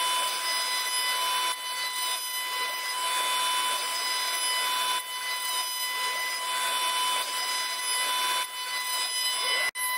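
CNC router spindle driving a 1/2-inch ball nose end mill through a Douglas fir leg blank turning on the rotary axis, on the finishing pass: a steady whine over a rushing cutting noise. The sound dips briefly a few times and cuts out for an instant near the end.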